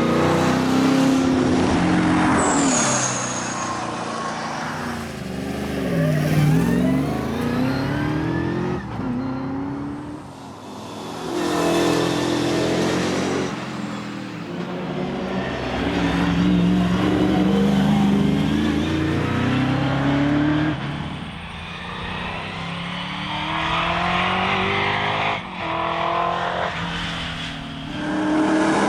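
Holden Torana race car's engine under hard acceleration, its pitch climbing through each gear and dropping at the shifts, with several lifts and brief dips in loudness where it slows for corners before pulling hard again.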